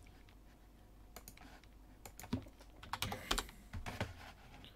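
Computer keyboard keys and mouse buttons clicking, a scatter of light, irregular clicks with a few close together near the middle.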